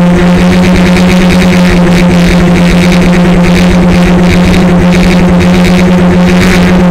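DJI Flame Wheel F450 quadcopter's stock motors and propellers holding a low hover, picked up by the onboard camera's microphone. The sound is a loud, steady hum with overtones over a rushing hiss.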